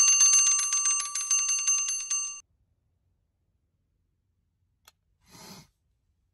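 Twin-bell alarm clock ringing, a rapid clatter of the hammer on the bells, which cuts off suddenly about two and a half seconds in.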